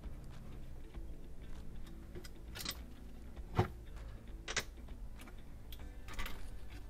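Plastic parts of a refrigerator evaporator fan motor assembly being handled and fitted together: a few separate clicks and scratchy rustles, the sharpest click about three and a half seconds in, over a low steady hum.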